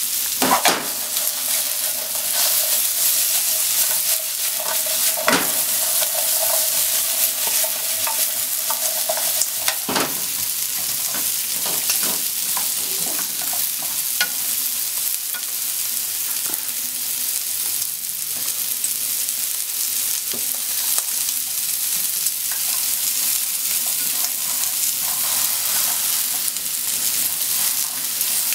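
Shrimp and potato slices sizzling in oil in a frying pan with a steady hiss, stirred with chopsticks that now and then click and scrape against the pan.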